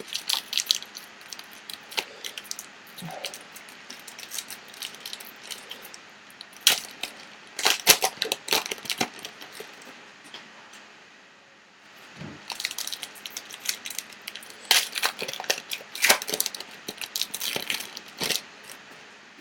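Donruss basketball card packs being torn open by hand: the wrappers tear and crinkle in several spells of rapid crackling, with quieter handling between.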